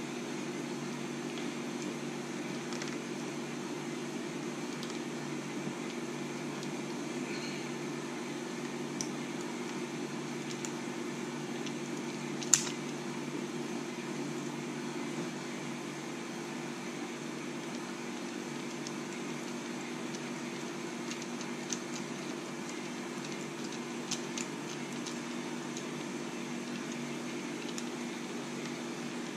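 Steady low machine hum, with scattered faint clicks and one sharper click about twelve and a half seconds in, as small screws are driven into a 3D-printed plastic servo gimbal with a precision screwdriver.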